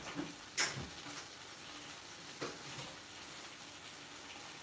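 Tomato, onion and chilli masala sizzling faintly in a stainless steel kadai. A sharp knock about half a second in and a softer one a couple of seconds later.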